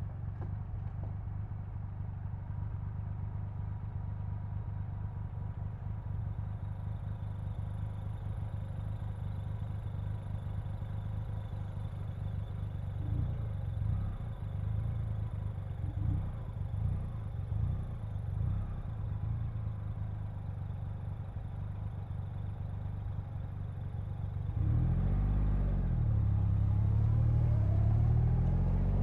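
Steady low engine rumble. About 25 seconds in, a louder engine sound takes over, its pitch rising and falling.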